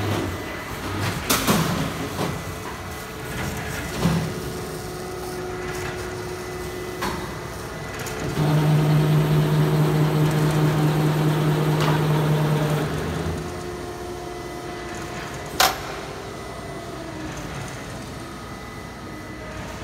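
Automatic film winder running: a steady machine hum, with a louder motor drone for about four seconds in the middle, and several sharp clunks from its moving parts, the loudest about three quarters of the way through.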